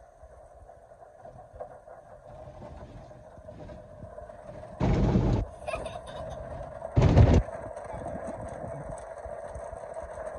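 Automatic car wash heard from inside the car: a steady machine hum, broken twice, about five and seven seconds in, by a loud half-second blast as the wash's water jets or brushes strike the car body.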